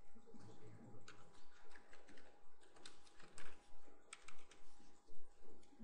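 Computer keyboard being typed on: light, irregularly spaced key clicks.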